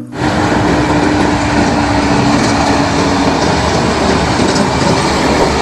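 Heavy dump trucks driving past on a dirt road: a steady, loud, noisy rumble of engines and tyres, with a low steady tone in it that stops a little past halfway.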